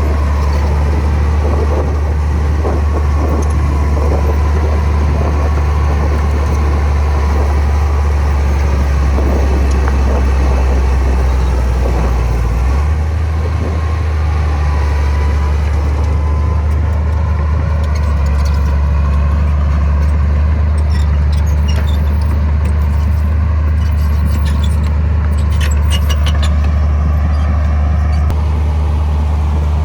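Komatsu bulldozer's diesel engine running steadily, its deep low note shifting about halfway through. Scattered light clicks and clanks come through in the second half.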